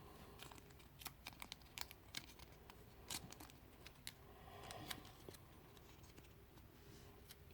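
Faint crinkles and small scattered clicks of a scored card pipe piece being folded firmly along its creases by hand.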